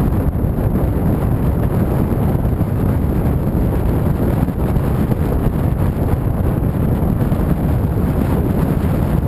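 Steady, loud wind rushing over the microphone of a camera riding on a moving motorcycle, with no clear engine note standing out.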